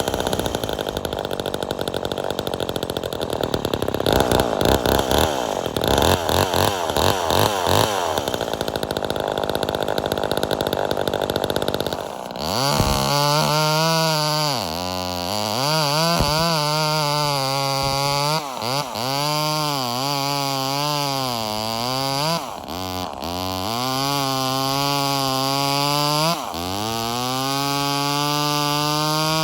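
Stock Homelite XL-76 two-stroke chainsaw running hard for about twelve seconds. After that it is revved up and down again and again, its pitch dipping and rising.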